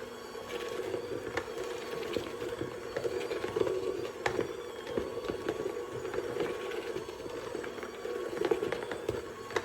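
Electric mixer running steadily as it works bread dough in a bowl, with irregular knocks and clicks as the dough slaps against the bowl; the dough has not yet come together into a ball.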